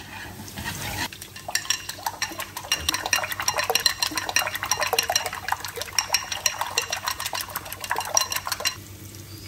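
Eggs being beaten with chopsticks in a white ceramic bowl: a fast, continuous clatter of the chopsticks against the bowl that stops shortly before the end.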